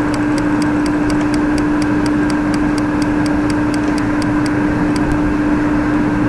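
A steady hum over a constant noisy background, with a fast, even ticking of about four to five ticks a second that stops about two-thirds of the way through.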